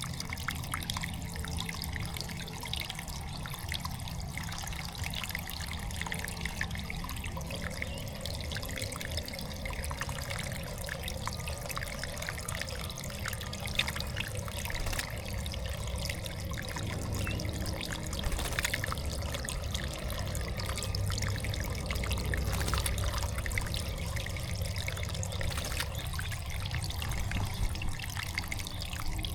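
Water trickling and dribbling steadily in a backyard bird bath, with many small drips and splashes.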